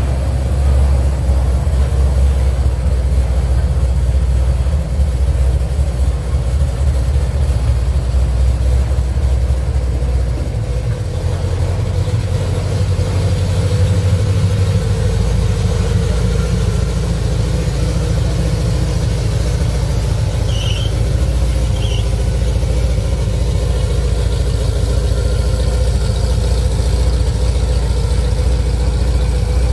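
A car engine running steadily with a deep, low rumble, its low note shifting a couple of times along the way. Two short high chirps come about two-thirds of the way through.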